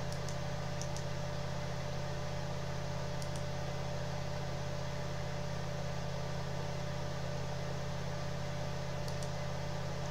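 Steady electrical hum and hiss, the background noise of an open microphone, with a few faint, brief clicks now and then.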